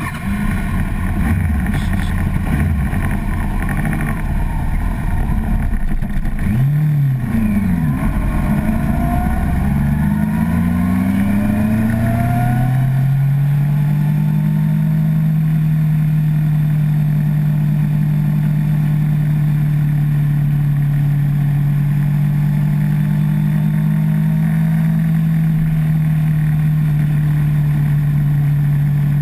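Sport motorcycle engine heard from a handlebar-mounted camera: a rough rumble at first, then revving up through the gears in a run of rising pitches about eight to twelve seconds in, then running at a steady pitch while cruising.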